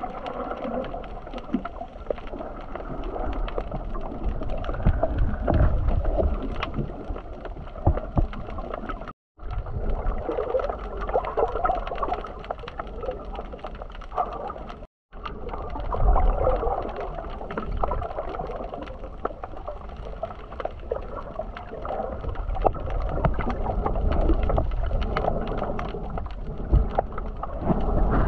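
Seawater gurgling and sloshing close to the microphone, muffled, with many small clicks and crackles and a low rumble; the sound cuts out briefly twice.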